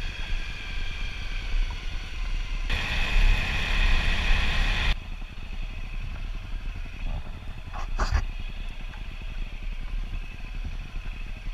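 Honda CRF250L's single-cylinder four-stroke engine running while riding along a dirt track. It gets louder for about two seconds around three seconds in, and a brief sharp knock sounds about eight seconds in.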